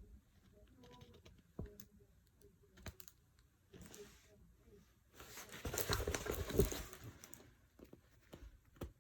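Rustling and crinkling of a large diamond painting canvas being handled, with scattered light taps and clicks; the loudest rustle comes about six seconds in.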